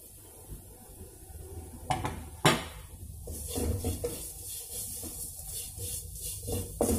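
Wooden spatula stirring and scraping fried chapati pieces around an aluminium kadai, with two sharp knocks about two seconds in, then continual scraping and clatter.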